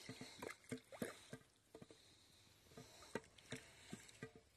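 Faint footsteps crunching on packed snow, a run of uneven steps that pauses a little before the middle, then picks up again more softly.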